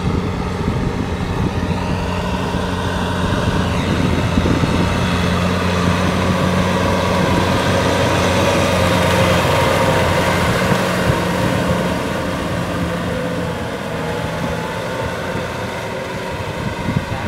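Kubota M6040 SU tractor's four-cylinder diesel running steadily as it tills a muddy rice paddy. It grows louder as the tractor passes close, about halfway through, then fades a little as it moves away.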